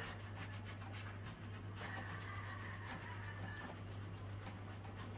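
Faint scratchy rubbing and scraping of a fireplace surface being scrubbed clean by hand, over a steady low hum.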